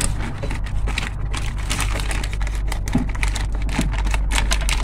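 Irregular light clicks and plastic rattles, with crinkling of the door's plastic sheet, as a car's interior door handle is worked back into its hole in the door.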